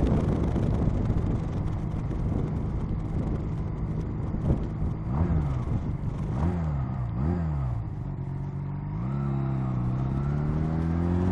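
Honda Rebel motorcycle engine heard over wind and rain noise on the ride. About halfway in, the revs rise and fall quickly a few times. Then the engine note climbs steadily as the bike accelerates.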